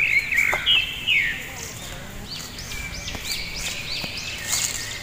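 Birds calling: a busy run of whistled notes in the first second or so, then a string of short chirps that rise and fall, about three a second.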